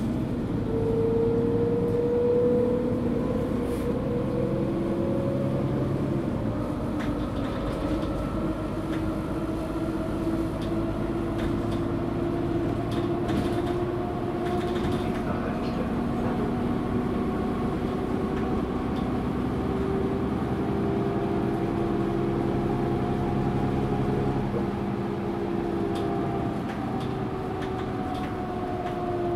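Mercedes-Benz Citaro G bus under way, its ZF Ecomat 6HP automatic gearbox whining loudly in fifth and sixth gear over the OM457 diesel engine. The several whine tones slowly rise and fall with road speed.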